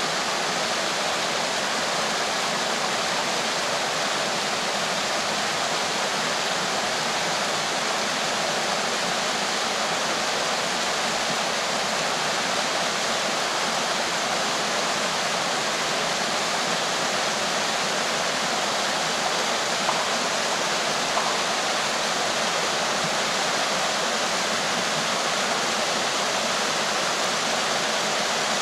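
Mountain river pouring down a small waterfall over rocks into a pool: a steady rush and splash of falling water.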